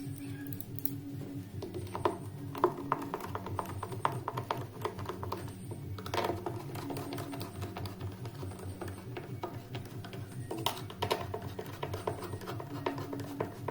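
Background music, with irregular clusters of light clicks and clinks from small metal parts being handled.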